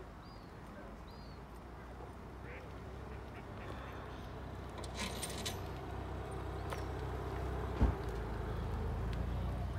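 Faint waterfowl calls over a low, steady rumble that slowly grows louder, with a short thump about eight seconds in.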